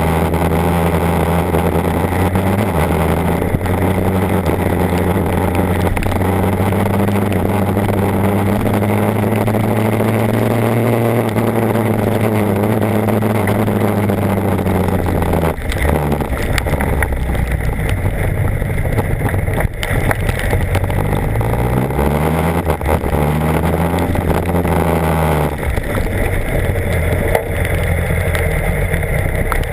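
BMW HP4's inline-four engine running steadily while the bike is ridden, over a steady rushing noise. The engine note swells slightly and eases back, breaks off about halfway, then rises and falls again a few seconds later.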